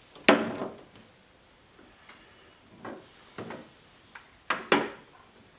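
Hand tools knocking and scraping against a 1971 Chevy C20's door while it is worked apart: one sharp knock about a quarter second in, lighter knocks and a brief scrape in the middle, and two quick knocks near the end.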